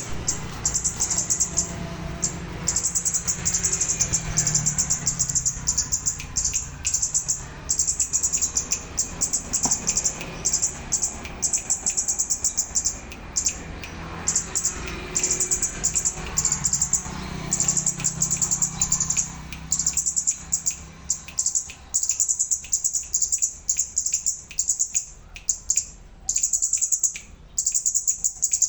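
Red-whiskered bulbul calls played as a lure recording: runs of rapid, high chattering notes in bursts about a second long, separated by short gaps, with fainter whistled notes beneath.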